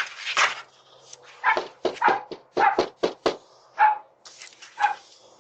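A dog barking repeatedly, a quick string of about ten short, sharp barks with brief pauses between them.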